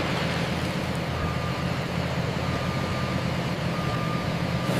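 Heavy construction vehicle's diesel engine running steadily with a low rumble, while its reversing alarm beeps three times, slow and evenly spaced.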